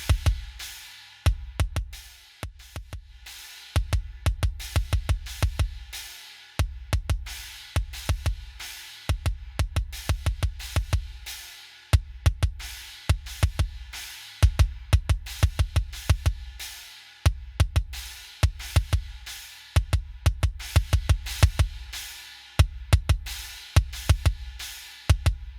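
Metal drum kit playing alone: fast double-bass kick runs in short repeated bursts, with snare and cymbal hits over them.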